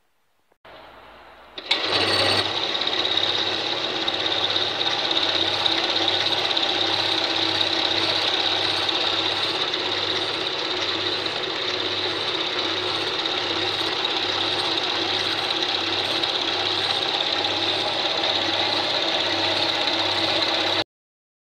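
Homemade metal lathe running, with a large twist drill in the tailstock boring into a metal plate spinning in the chuck. The sound comes on about a second and a half in and then runs steadily, with a low pulse repeating at an even beat. It cuts off abruptly just before the end.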